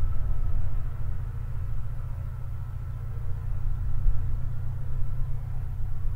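SM42 diesel locomotive working under power as it pulls a passenger train away, its engine hum fading in the first second or so over a steady low rumble.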